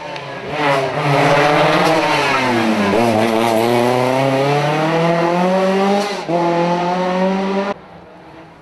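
Rally car engine accelerating hard, its pitch climbing through the gears, with upshifts about three seconds in and again about six seconds in. The sound cuts off suddenly near the end.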